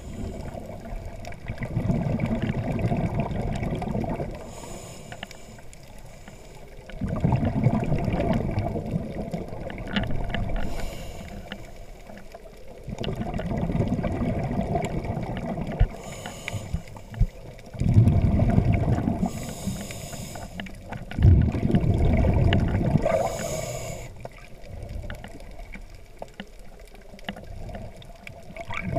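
Underwater sound of a diver's breathing heard through the camera housing: surges of rumbling exhaled bubbles every few seconds, with short fainter hisses between them.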